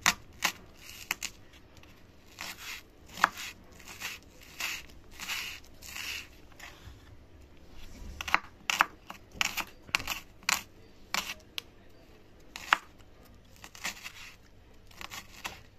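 Kitchen knife finely chopping spring onion whites on a wooden cutting board: sharp, irregular taps of the blade against the board.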